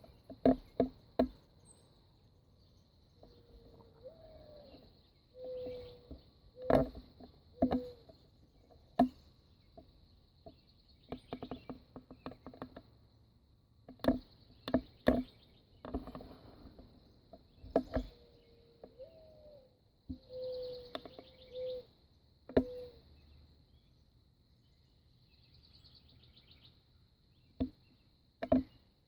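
Doves cooing in low, gliding notes several times over a steady high insect trill, with birds chirping. Sharp knocks sound at scattered moments and are the loudest thing heard.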